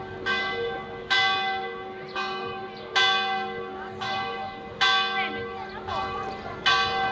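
Church bells of Sacred Heart Cathedral tolling: a strike every second or two, each ringing out and fading before the next.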